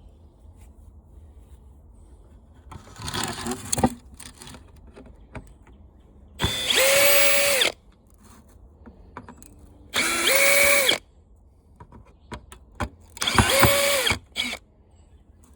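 Power drill running in three short bursts of about a second each, spinning up in pitch and then holding steady, driving screws out of a floor fan's housing.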